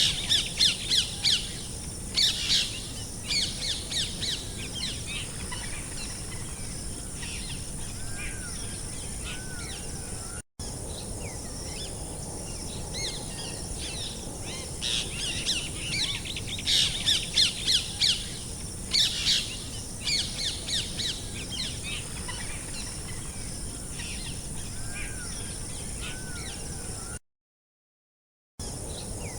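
Outdoor birdsong ambience: many small birds chirping in quick bunched bursts, over a steady high hiss. It cuts to silence twice, for an instant about a third of the way in and for over a second near the end.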